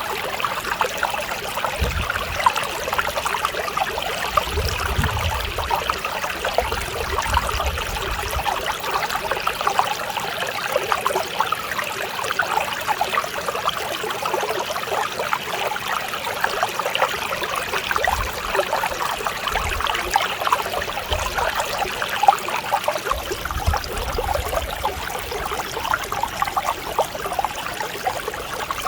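Mountain stream flowing over rocks, a steady babble of small splashes and trickles, with a soft low rumble now and then.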